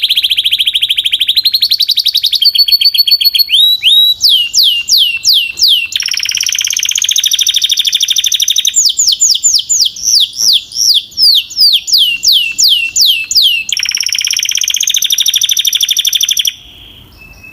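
Belgian canary singing loudly, alternating fast rolling trills with runs of quick falling whistled notes; the song stops abruptly about a second before the end.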